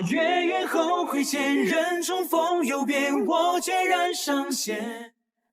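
Background music: a solo voice singing a wavering melodic line, cutting off about five seconds in.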